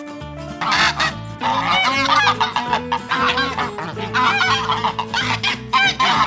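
Geese honking in quick, overlapping bursts from about half a second in, over light background music.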